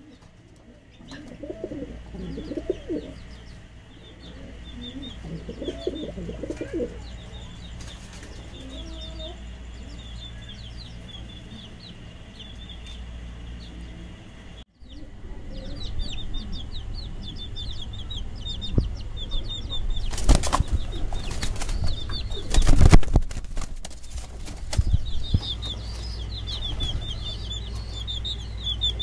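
Shirazi pigeons cooing in a wire cage, with a burst of wing flapping about three quarters of the way through. A fast, high chirping runs through most of it over a steady low hum.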